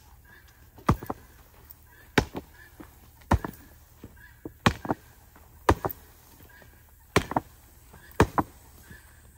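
A hand tool striking in a steady rhythm, seven blows about 1.2 seconds apart, each often followed by a lighter second knock.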